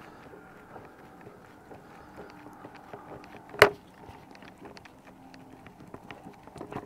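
Faint steady background hum with a single sharp click a little past halfway through.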